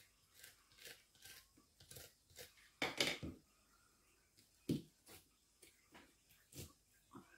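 Kitchen knife cutting and scraping through a small shark's flesh along the bone: a string of short, irregular slicing and scraping sounds, with a louder stretch about three seconds in and a sharp knock shortly before five seconds.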